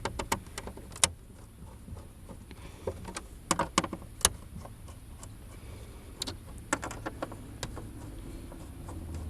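Scattered sharp clicks and light knocks of a hand tool and plastic dashboard trim being handled while the screws holding the trim are taken out. A steady low hum runs underneath.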